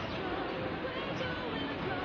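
Indistinct chatter of several people in a busy shop, with no single voice standing out.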